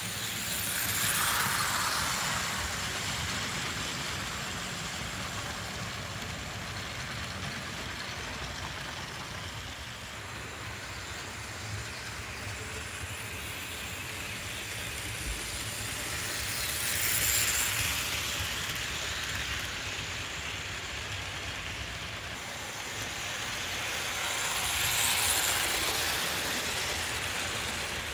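Franklin Mint HO-scale Southern Railway Ps-4 Pacific model steam locomotive and its train of cars running on the layout track. It gives a steady rolling mechanical noise that swells three times as the train passes close by: about a second in, after about 17 seconds and again near the end. The locomotive's motor runs a little loud, which is standard for 1980s models.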